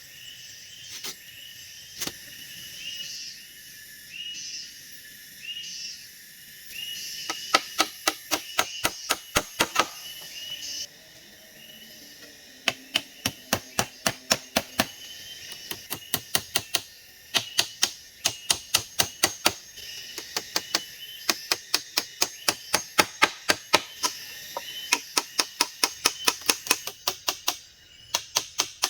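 A fast, even series of sharp knocks, about four to five a second, coming in runs of several seconds with short breaks. Behind them is a steady high chirping of forest insects or birds.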